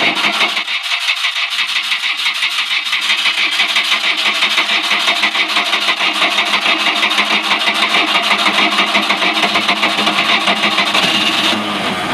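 Inboard boat engine being cranked over by its starter motor after weeks unused: a steady starter whine with a quick, even chug of compression strokes, and the cranking stops near the end.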